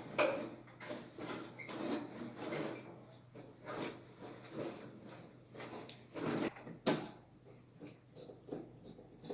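Irregular knocks, clunks and clatter of hard objects being handled, with the loudest knocks about four and about seven seconds in.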